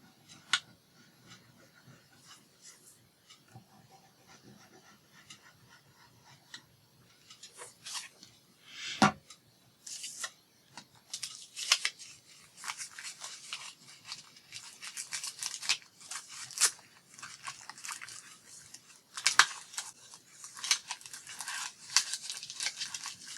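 Paper rustling, crinkling and scraping as glued paper pieces are handled and slid into place, sparse at first and busier from about seven seconds in, with a single thump about nine seconds in.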